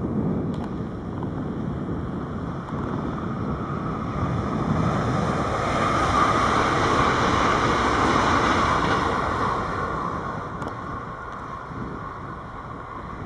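Six-car NS Sprinter Lighttrain (SLT) electric multiple unit passing close by: a rushing wheel-and-rail rolling noise that swells to a peak midway and fades as the train goes by.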